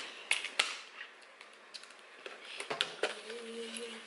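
Sharp plastic clicks and taps as a fast-food cup's lid and straw are handled and pulled off; the loudest clicks come about a third and two-thirds of a second in, with another about two and a half seconds later. A faint steady low tone enters about three seconds in.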